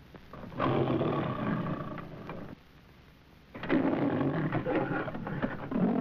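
A lion roaring in long roars over a faint background hiss from an old film soundtrack: the MGM studio-logo lion. The first roar comes about a second in and lasts about two seconds; the next begins a little after halfway and swells again near the end.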